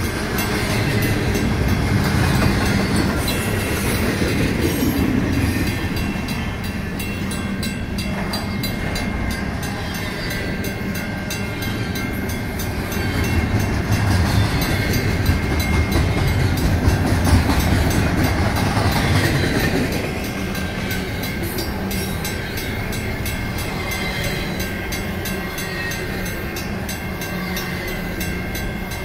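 Cars of a double-stack intermodal freight train rolling past: a steady rumble with wheels clacking over the rail, swelling twice as heavier groups of cars go by. A grade-crossing bell rings steadily underneath.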